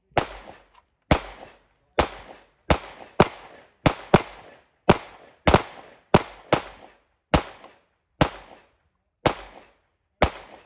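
Semi-automatic pistol firing a string of about fifteen sharp shots, irregularly spaced at roughly one to two a second, each followed by a brief ringing echo.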